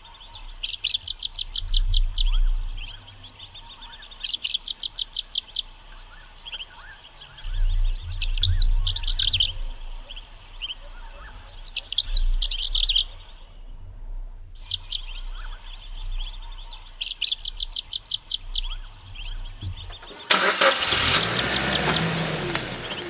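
Bursts of rapid, evenly spaced high clicks, about eight a second and each burst a second or so long, repeat every few seconds. About twenty seconds in the sound changes to the Suzuki Jimny's engine running as the vehicle pulls away.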